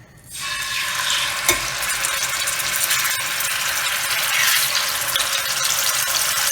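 Yogurt-marinated chicken pieces going into hot oil in a frying pan: a sudden loud sizzle starts a moment in and keeps frying steadily, with one brief knock about a second and a half in.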